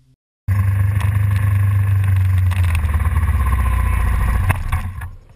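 Suzuki SV650 race bike's V-twin engine running close to the camera, a loud, steady low rumble that starts abruptly about half a second in and dies away near the end, with a few knocks from handling.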